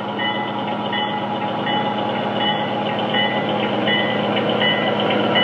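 Diesel passenger locomotive running with a steady engine drone while a bell rings at an even beat, a little more than once a second. The sound grows gradually louder as the train approaches.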